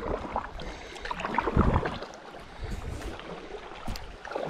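Kayak paddling on a shallow creek: paddle blades dipping and splashing with water dripping, and a low thump about one and a half seconds in.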